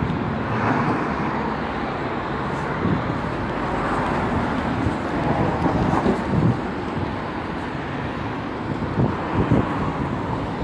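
Road traffic on a street: cars passing, a steady rush of engine and tyre noise, with a few short thumps about six seconds in and again near the end.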